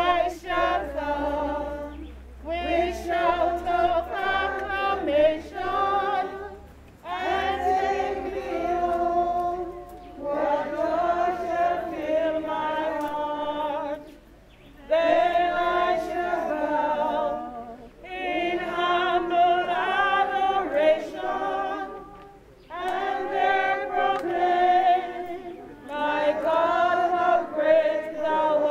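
A group of voices singing unaccompanied, in phrases a few seconds long with short breaks between them.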